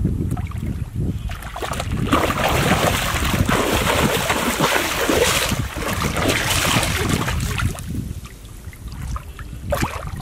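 Water splashing and sloshing as hands and legs stir a shallow, muddy pool, busiest through the middle and dying down near the end, with a brief splash just before the end.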